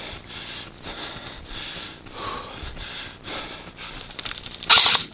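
A person breathing hard close to the microphone, in repeated puffs about one to two a second, with a short loud burst near the end.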